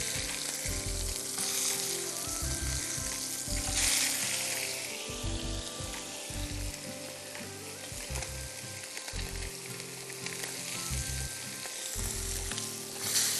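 Sole fillet sizzling as it pan-fries in a little oil in a non-stick frying pan, with the sizzle flaring louder about four seconds in and again near the end.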